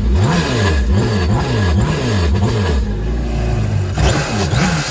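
Supercharged four-cylinder engine of a Yamaha FX SHO jet ski being revved in a run of quick throttle blips, settling to idle about three seconds in, then blipped twice more near the end. It is a throttle-response check after a 1000cc injector upgrade; the engine picks up cleanly, with no dead spots.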